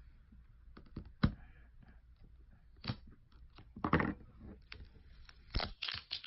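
A tempered-glass screen protector being pried and peeled off a cracked iPhone 7 screen: scattered sharp clicks and short crackles, with a longer crunchy stretch about four seconds in and a quick run of clicks near the end.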